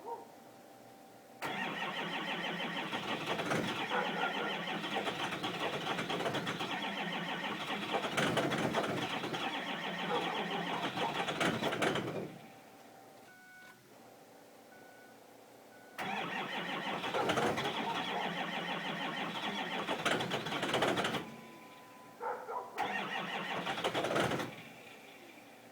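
2005 Ford 6.0-litre Power Stroke V8 diesel cranking on the starter in three attempts of about eleven, five and two seconds. Each attempt cuts off without the engine settling into a run: a hard cold start, the block heater having lost power to a tripped breaker.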